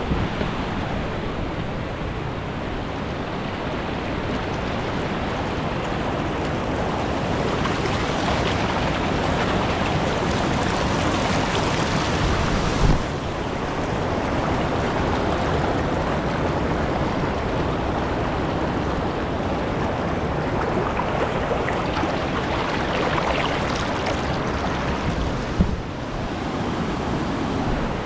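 River rapids rushing over rock ledges: a steady wash of water noise. Two brief thumps are heard, one about halfway through and one near the end.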